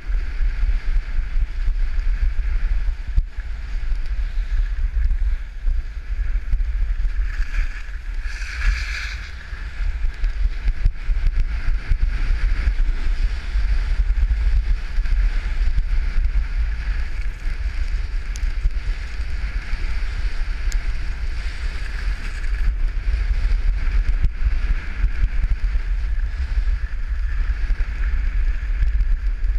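Heavy wind buffeting on the microphone while moving down a ski slope, over a steady hiss of sliding on snow. A brief louder scrape comes about eight seconds in.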